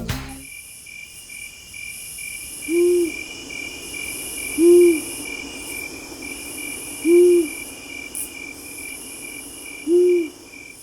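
Owl hooting four times, each a short low hoot, evenly spaced a couple of seconds apart, over steady rhythmic insect chirping.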